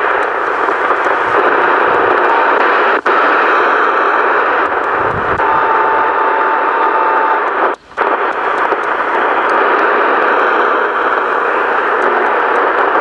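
Johnson Messenger 130A CB radio's speaker hissing with receiver static as the channel selector is stepped through the channels, with no stations coming in. The hiss drops out briefly twice, and a steady whistle tone sounds for about two seconds midway.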